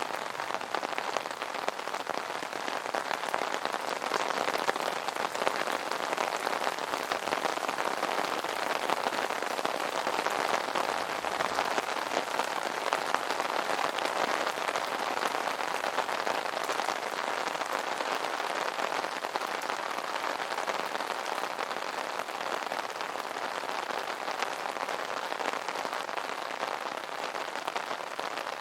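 Steady rain drumming on an umbrella canopy: a dense, even patter of drops with no thunder.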